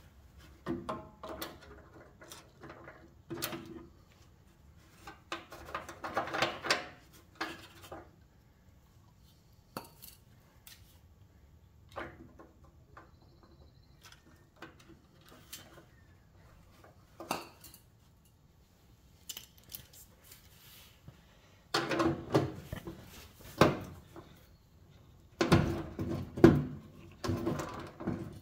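Hand tools clinking and scraping against metal fender bolts in short, separate bursts with quiet gaps, as stuck bolts are worked loose. The loudest run of clatter comes near the end.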